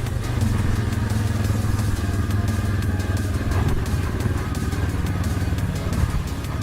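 2019 Suzuki KingQuad 750 ATV's single-cylinder engine running at a steady trail pace, with light clatter of the quad over rough ground.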